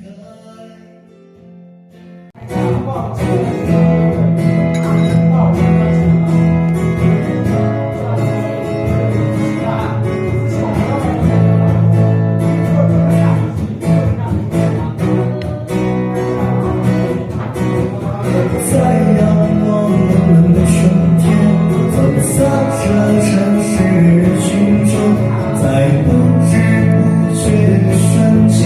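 Background song with guitar and singing, starting about two and a half seconds in after a quiet opening.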